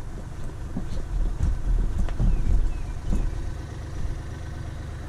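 Machine engine running steadily at low speed, growing louder for a second or two in the middle, with scattered short knocks and clicks from the equipment.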